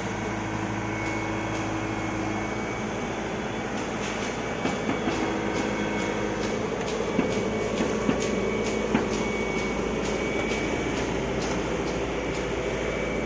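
Kato excavator at work: a steady engine and hydraulic drone with a faint high whine, regular ticking about twice a second, and a few louder metallic clanks between about four and nine seconds in.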